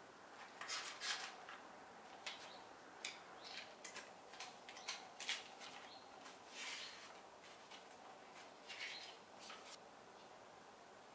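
Paper pages of a notebook being leafed through: quiet, short rustles and flicks at irregular intervals as the pages are turned.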